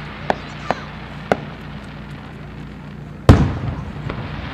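Aerial firework shells bursting: three short sharp cracks in the first second and a half, then a loud deep boom about three seconds in that rumbles and fades over about a second.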